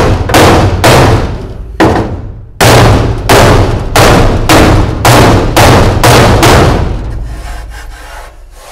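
About a dozen heavy hammer blows on the metal underside of a recovery truck body, knocking out a dent. Each blow rings on briefly. They come about a second apart at first, then quicken to roughly two a second, and stop about two-thirds of the way through.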